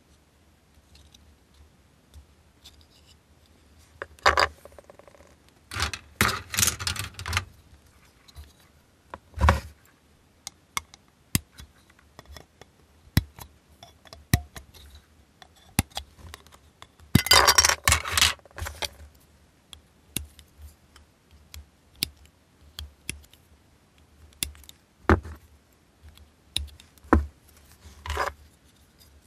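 Plastic scale-model kit parts and their sprue handled by hand: many sharp clicks and taps of hard plastic, with short bursts of rattling and scraping about four, six and seventeen seconds in.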